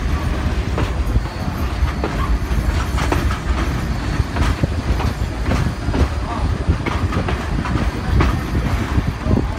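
Moving heritage passenger train heard from an open carriage window: wheels clicking over the rail joints every half second or so, over a steady low rumble.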